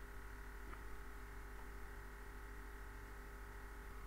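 Quiet room tone: a steady low electrical hum with a few fixed tones over faint hiss, and one faint tick a little under a second in.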